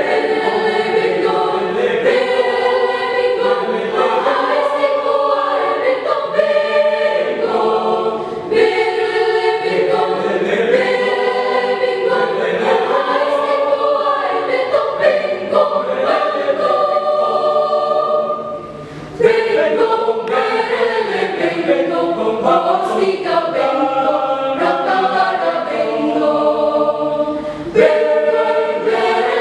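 High school choir singing in parts, with a brief break about two-thirds of the way through.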